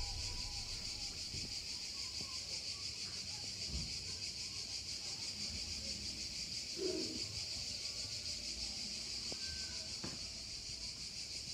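A steady, high, evenly pulsing chorus of insects, with a few faint clicks.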